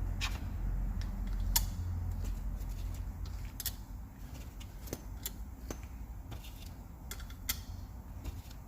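Scattered light metallic clicks and taps of small parts being handled and set on a cylinder head during assembly, over a steady low hum.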